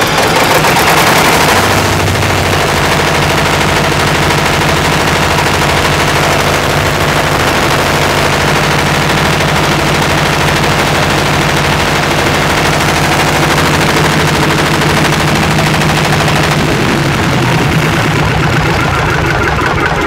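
Diesel engine of a concrete mixer-pump machine running steadily at a constant speed, with a rapid, even pulsing beat, just after being started.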